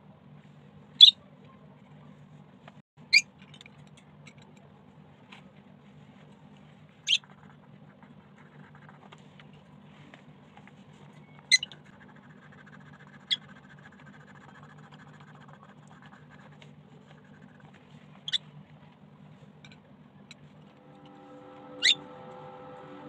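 Faint coloured-pencil strokes on paper over a steady low hum, broken by about seven short, sharp, high-pitched chirps a few seconds apart. A steady multi-tone hum comes in near the end.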